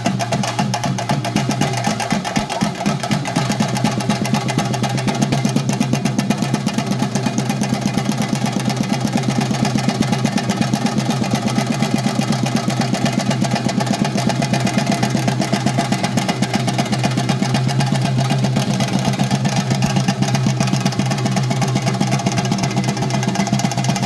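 Fast, steady drumming on chenda drums accompanying a theyyam, beating without a break over a steady low drone.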